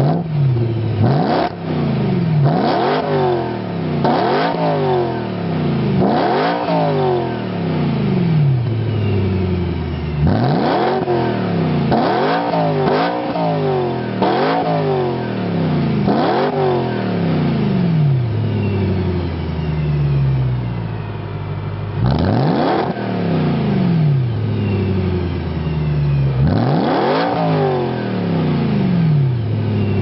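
BMW E92 M3's V8 engine, breathing through an Arqray race exhaust and Challenge X-pipe, being revved in place: about a dozen sharp throttle blips, each climbing fast and falling back more slowly toward idle. There is a longer settle toward idle a little past the middle before the revving picks up again.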